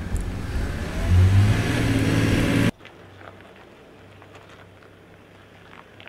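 Ineos Grenadier 4x4's engine revving, its pitch rising, with water and mud splashing under the tyres. About two and a half seconds in the sound cuts off suddenly to a much quieter low engine hum with a few faint clicks as the truck crawls over gravel.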